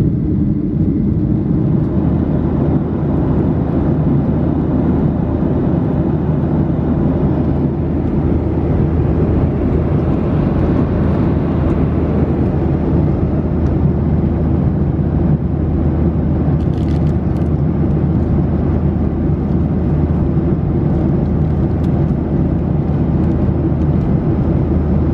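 Steady cabin noise of a Boeing 737-800 in flight: a deep, even rumble of its CFM56-7B engines and the rushing air.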